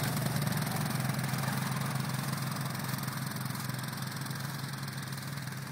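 Dirt bike and quad bike engines running steadily at low revs, slowly growing fainter as the bikes ride away.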